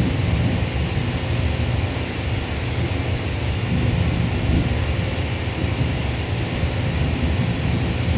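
Jet airliner engines at an airport: a steady low rumble.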